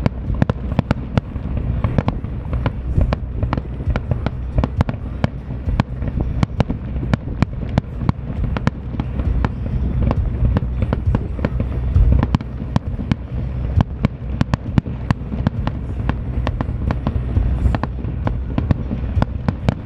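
Aerial fireworks display: a rapid, continuous string of sharp bangs and crackles over a deep rumble of shell bursts, loudest about twelve seconds in.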